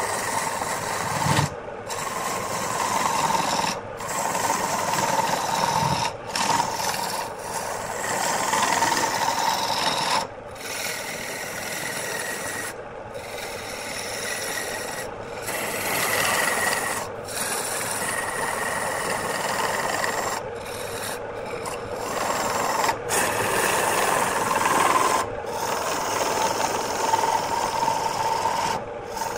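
A hand-held turning tool cutting into a spinning wooden workpiece on a lathe: a continuous rasping scrape of steel on wood as shavings come off, over a steady tone from the running lathe. The sound drops out briefly about a dozen times.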